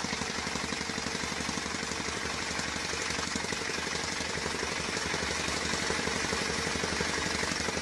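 Jackhammer (demolition hammer) running continuously: a rapid, steady machine-gun hammering of the chisel that cuts in suddenly and holds an even rate.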